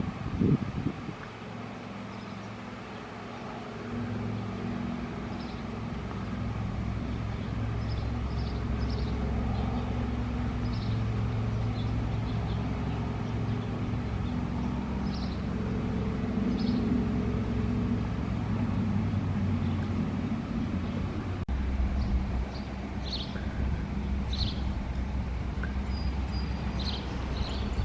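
A motor vehicle engine running steadily as a low drone, with short high bird chirps scattered over it.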